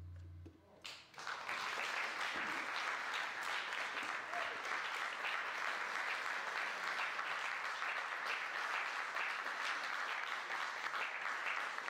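The last held note of the music stops, and about a second in an audience breaks into steady applause that keeps going.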